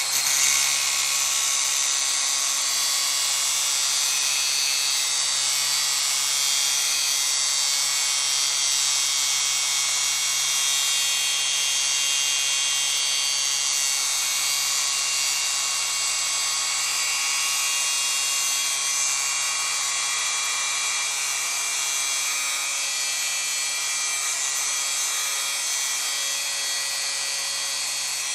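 DeWalt 60V cordless angle grinder running steadily under load, its blade cutting through a metal bolt.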